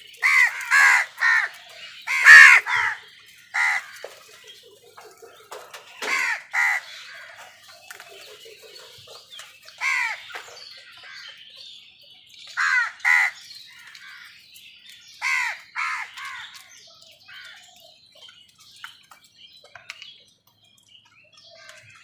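A group of house crows cawing: harsh calls come in clusters of two to four every few seconds, the loudest about two seconds in, and thin out over the last few seconds.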